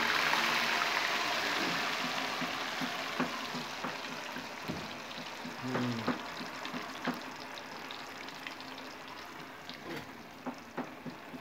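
A slice of tofu deep-frying in hot oil in a wok, sizzling loudly just after it has gone in. The sizzle slowly dies down, with scattered pops and crackles.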